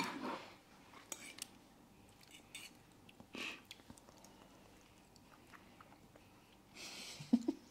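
Faint chewing and small clicks of forks on plates as two people eat, with a short breathy sound about three and a half seconds in and another near the end.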